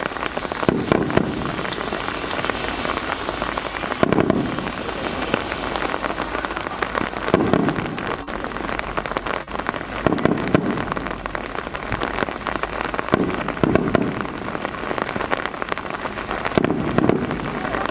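Steady rain pattering, with fireworks shells booming dully about every three seconds.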